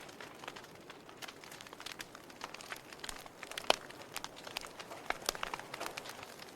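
Wood fire burning in a fireplace: steady crackling with frequent sharp pops, the loudest a little past halfway.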